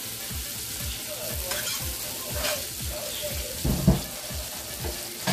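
Butter sizzling and foaming as it melts in a hot nonstick frying pan, a steady hiss. A dull knock sounds just before four seconds in.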